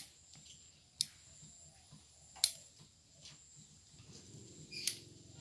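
Bonsai scissors snipping twigs off a serut (Streblus asper) bonsai: four short, sharp snips spaced about one to two seconds apart, the third the loudest.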